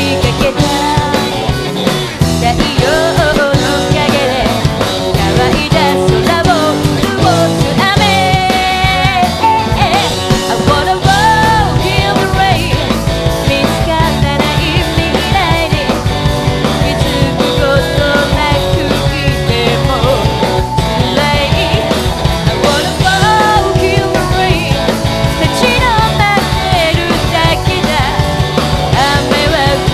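Live band performing a rock song, with a singer's voice over the instruments.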